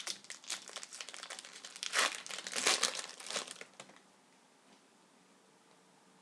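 Hockey card pack wrapper being torn open and crinkled by hand, with the loudest crinkles about two seconds in; the rustling stops about four seconds in.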